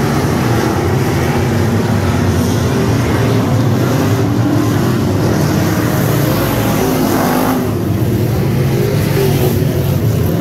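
A pack of street stock race cars circling a dirt oval, their engines running together at a steady, loud level.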